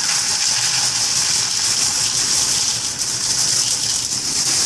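Plastic cereal bag liner full of cereal crinkling and rustling steadily as a hand digs through it.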